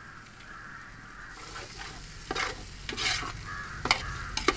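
Metal ladle stirring thick biryani masala in a large aluminium pot, with the masala sizzling; from about a second in the stirring picks up, and the ladle clinks sharply against the pot three times.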